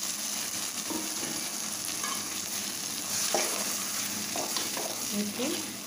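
Masala paste and fenugreek leaves sizzling in hot oil in a metal kadai, stirred with a metal slotted spatula that knocks against the pan now and then.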